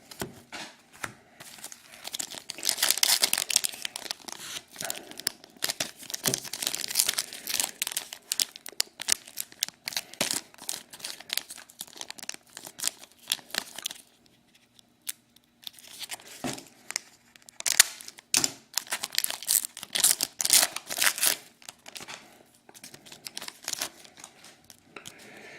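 Hockey card packs being torn open and their wrappers crinkled, in irregular bursts of rustling with a short pause a little past halfway.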